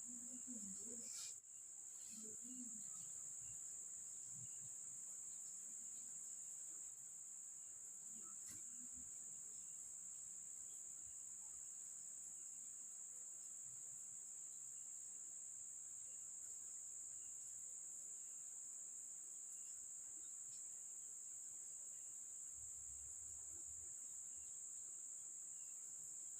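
Faint, steady high-pitched insect trill that runs without a break. There are a few soft, low murmurs in the first seconds and again about eight seconds in.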